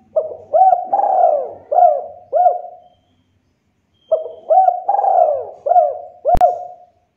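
Spotted dove cooing: two phrases of several coo notes that each rise and fall in pitch, each phrase about three seconds long, a second's pause between them. A sharp click sounds near the end of the second phrase.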